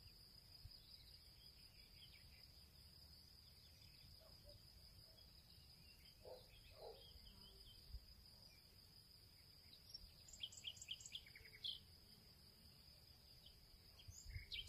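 Near silence: faint background with a steady high-pitched whine, like an insect trill, and a quick run of faint short chirps about ten seconds in.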